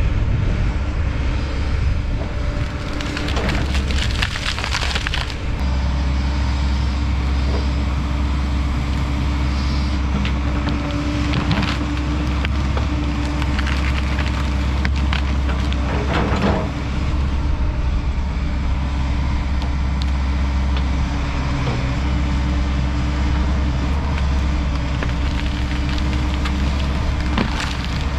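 Kobelco SK210 excavator's diesel engine running steadily while wood cracks and splinters several times as trees and brush are broken and torn out. The longest cracking comes a few seconds in, with shorter bursts later.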